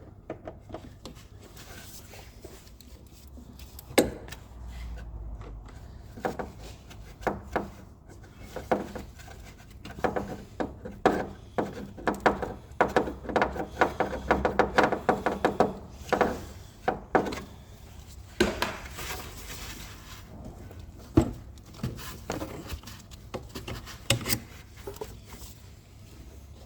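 Hand tools and metal fittings clicking and knocking as fuel injectors, fuel lines and a boost hose are undone from a car's fuel metering head. There is a quick run of rapid clicks in the middle and a few sharper knocks.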